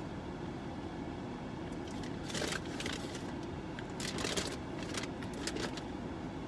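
Steady low rumble of a car's cabin, with a few short crackling rustles about two and a half, four and five and a half seconds in, as of food packaging being handled.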